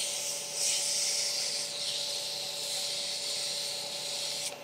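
600-grit wet/dry sandpaper rubbing on a spinning acrylic pen blank on a lathe: a steady wet hiss over the lathe's faint steady hum, stopping near the end. The sandpaper is kept wet with water so the plastic stays cool.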